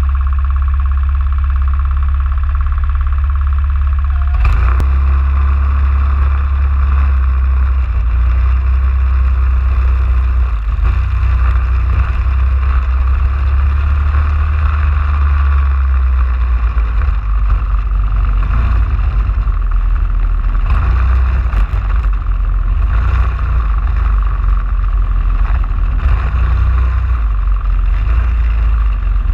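Racing kart engine running loud and steady right behind the onboard camera, with heavy wind rumble on the microphone. About four and a half seconds in there is a sharp click, and the engine's higher note grows stronger from then on as the kart drives at racing speed.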